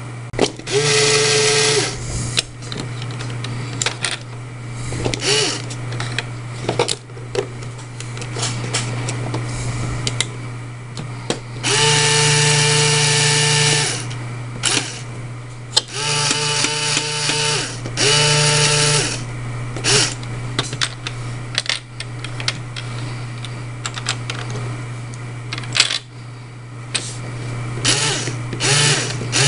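A small LEGO electric motor drives a worm gear and a large wheel that pushes a chain of plastic links, running with a steady hum and constant light plastic clicking. Several times, about a second in, around twelve seconds, and twice more shortly after, a louder steady whine comes in for a second or two.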